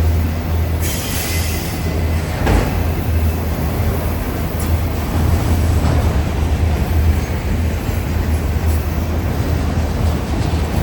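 Union Pacific freight train rolling past: a steady low rumble from the moving train, with a sharp knock about two and a half seconds in.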